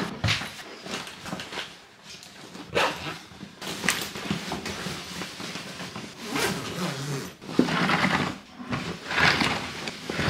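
Luggage being handled on a wooden floor: a series of short scuffs, bumps and rustles as a large rolling suitcase is stood upright and a smaller wheeled bag is set down beside it.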